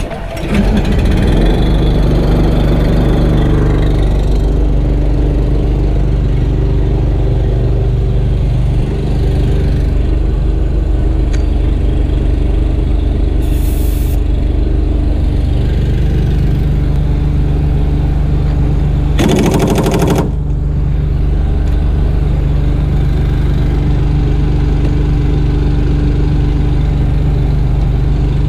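Small gas engine of a portable air compressor catching about half a second in on a cold start, then running steadily. Two short hisses, the second, about two-thirds of the way through, louder.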